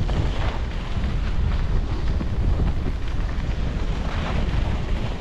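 Wind buffeting the microphone of a moving skier: a heavy, steady low rumble. Above it runs the hiss of skis sliding over the snow, swelling briefly near the start and again about four seconds in, as the skis carve or scrape.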